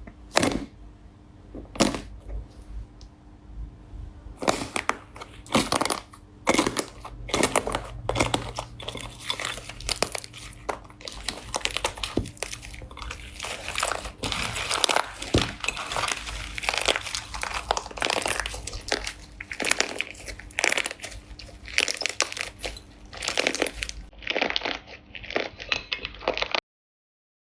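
Slime being squished and kneaded by hand: a dense run of sticky crackles and pops, sparse at first and then nearly continuous, which cuts off to silence near the end.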